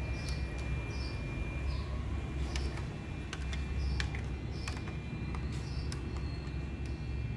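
Sharp clicks from front-panel buttons on a Marantz CM6200 CD/MD combination deck. Under them runs a steady low rumble, a thin high tone and short high chirps that repeat about once a second.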